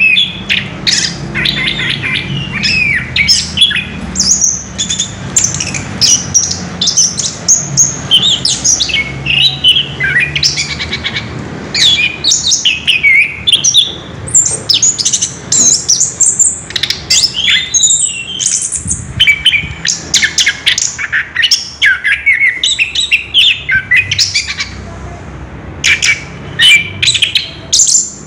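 Orange-headed thrush singing a long, unbroken run of quick, varied whistles and chirps, note after note with hardly a pause.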